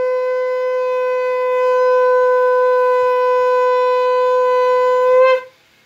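A conch shell (shankh) blown in one long, steady, loud note. It rises slightly in pitch just before it cuts off, about five seconds in. It is sounded at the close of a chapter of a Hindu katha recitation.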